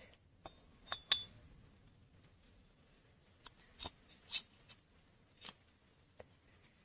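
Light metallic clicks and clinks as a steel piston pin is worked by hand into the pin bore of an S195 engine's aluminium piston. A sharp, ringing clink about a second in is the loudest, and a handful of softer clicks follow between about three and six seconds in.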